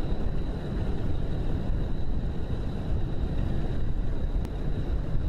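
Steady low rumbling of wind buffeting the microphone over idling road vehicles, with a thin steady high tone throughout and a single sharp click about four and a half seconds in.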